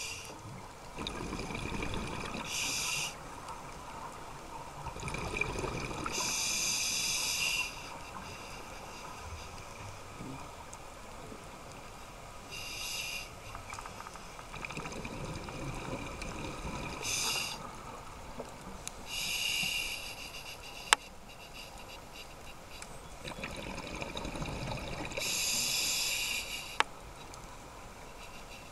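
Scuba breathing heard underwater: bursts of exhaled regulator bubbles every few seconds, with quieter inhalation hiss between them. Two sharp clicks in the second half.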